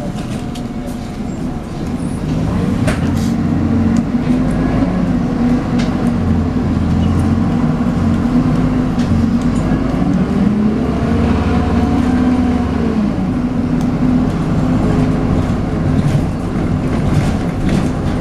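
MAN 18.240LF Alexander Enviro 300 bus's diesel engine, heard from on board, pulling with its whining 'hoover' note rising and falling in pitch as the revs change. It grows louder about two seconds in.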